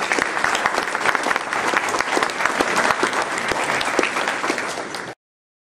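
Audience applauding, a dense patter of many hands clapping that cuts off suddenly about five seconds in.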